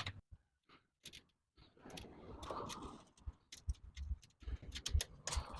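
Scattered light clicks and knocks of metal hardware being handled, with a scraping rub about two seconds in, as a miter saw is fitted and fastened onto a miter saw stand's mounting brackets.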